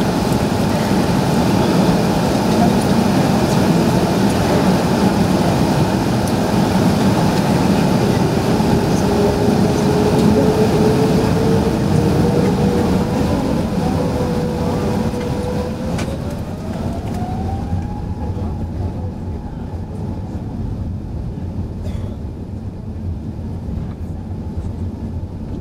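Airbus A380's GP7200 engines and airflow heard from inside the cabin while on the ground: a loud steady rush, with a whine that rises in pitch over several seconds in the middle. The rush eases a little after the whine levels off.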